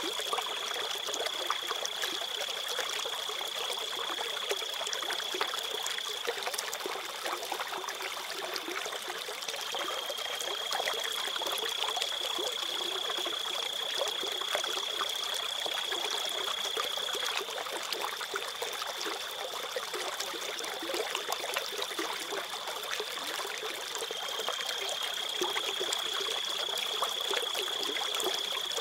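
Shallow river water trickling and babbling steadily, with a constant high-pitched whine running through it that shifts slightly in pitch a few times.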